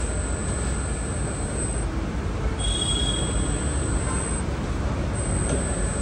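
Steady low rumble of background noise, with a brief high tone a little under three seconds in.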